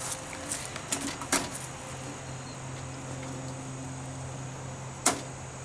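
A few sharp clicks and knocks from a small plastic tub being handled on a wooden railing, two of them louder, about a second in and near the end, over a steady low hum.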